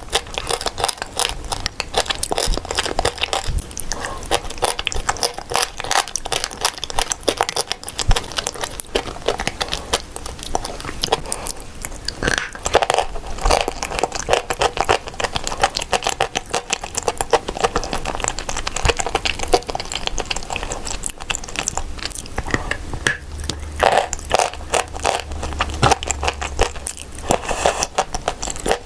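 Close-up crunching and chewing of edible chalk and clay: a dense, unbroken run of crisp bites, crackles and scrapes.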